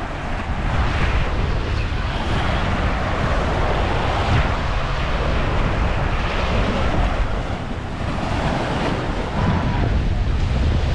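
Wind buffeting the microphone with a steady low rumble, over small waves washing onto the shore that swell and fade every few seconds.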